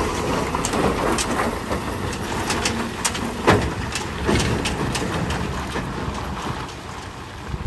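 Heavy dump truck running, its engine a steady low drone under a scatter of short knocks and rattles, the loudest about three and a half seconds in.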